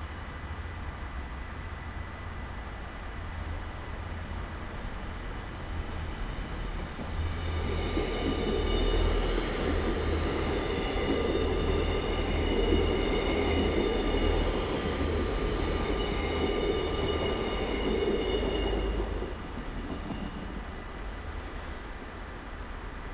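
A red passenger train passing over a level crossing: its rumble swells in about seven seconds in, with several high whining tones above it, runs for about twelve seconds and fades away. The crossing bells ring steadily underneath.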